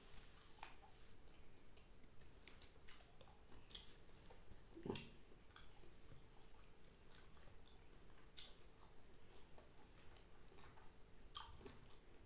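Faint eating sounds: chewing and scattered small wet clicks as fingers pick apart fried fish and rice on a banana leaf.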